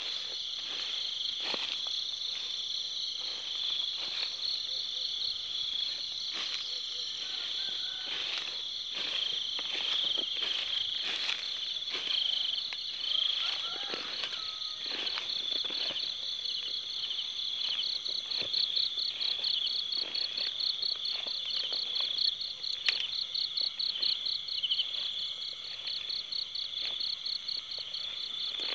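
Night chorus of crickets trilling steadily, joined partway through by a louder, rapid pulsed trill. Footsteps swish through grass and undergrowth at irregular intervals.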